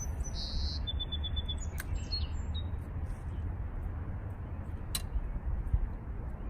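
Songbird calling: a few high, short notes, then a quick run of about six chirps and a couple more notes in the first two and a half seconds. A steady low rumble runs underneath, with two sharp clicks about two and five seconds in.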